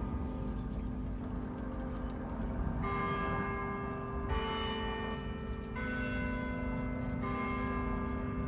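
Bells chiming a slow tune, moving to a new note or chord about every one and a half seconds, over a steady low rumble.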